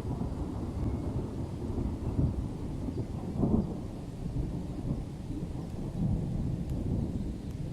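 Rolling thunder: a long, low rumble that swells to its loudest about three and a half seconds in and then slowly dies away.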